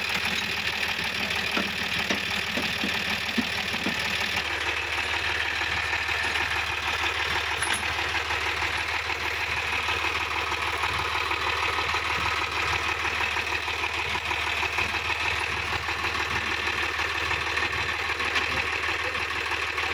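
Diesel engines of the Sonalika DI-50 RX and Swaraj 855 FE tractors running steadily with an even diesel chatter.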